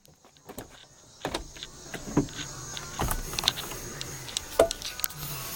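Air-ride solenoid valves clicking as they are switched on and off, several irregular clicks, with a steady hiss of compressed air flowing through the lines to raise the airbags.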